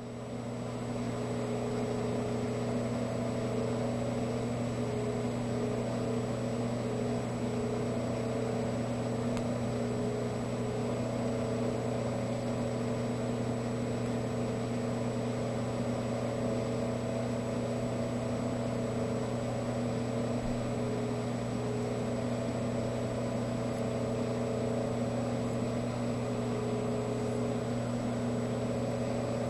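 A steady low drone of several held tones, unchanging in pitch and level.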